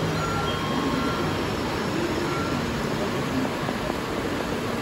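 Steady rushing ambience of a station platform, with a few faint high tones in the first second or so.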